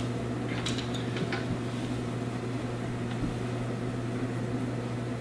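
Steady low electrical hum over a faint hiss of room noise, with a few soft brief rustles about a second in.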